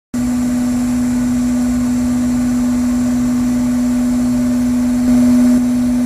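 45 kW electric industrial vacuum unit running steadily: a constant hum over an even rushing noise, briefly a little louder about five seconds in.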